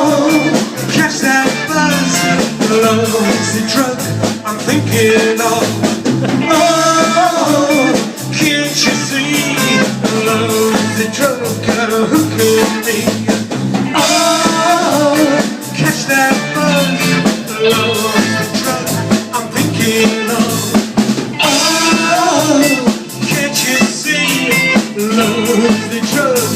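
Live band playing a rock number: a steady drum-kit beat under a melody line that comes back in phrases every several seconds.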